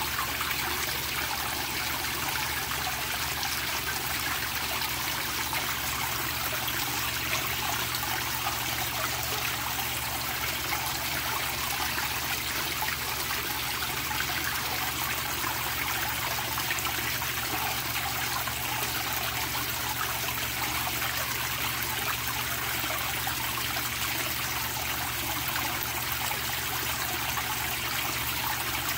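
Water jetting from a pond outlet and splashing steadily onto the surface of a koi pond, a constant, even rush.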